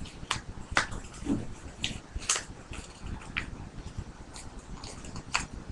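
Construction paper being folded and creased by hand: irregular crisp crinkles and small taps.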